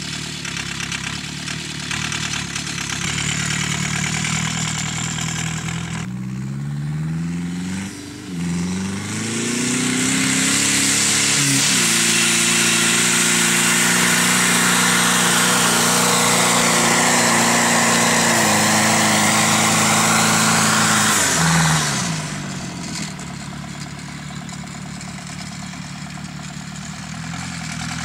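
Ford Transit van's turbo-diesel engine driving hard: the revs climb twice, with a brief dip about 8 seconds in like a gear change. From about 12 seconds it is held at high revs under a loud rushing noise. About 22 seconds in it backs off to a lower, quieter running sound.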